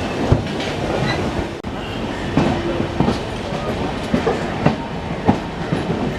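Passenger train running, heard from aboard a coach: a steady rumble with irregular clicks and knocks of the wheels over the rails.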